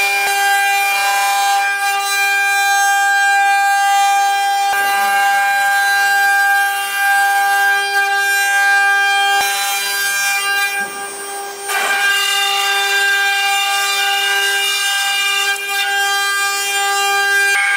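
Twelve-head four-axis CNC wood router carving turned balusters: the spindles run with a steady high whine over the noise of the cutters in the wood. The sound dips briefly about eleven seconds in.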